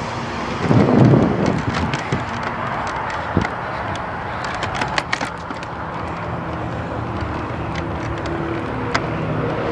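Steady rushing noise with scattered clicks and knocks: wind and handling noise on a hand-held camera carried at a run, with a louder rush about a second in. A faint droning hum comes in during the last few seconds.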